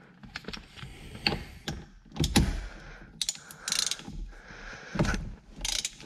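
Hand ratchet clicking in short quick bursts, with clinks and knocks of a metal extension and M12 triple-square bit being fitted together and onto the steering-wheel bolt.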